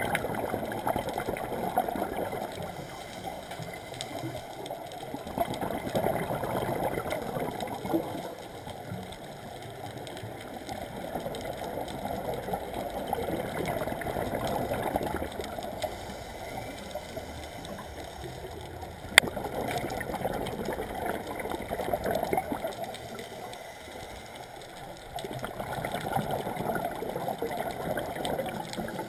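A scuba diver's exhaled bubbles gurgling and rushing past the underwater camera, in swells about every six seconds. A single sharp click sounds about two-thirds of the way through.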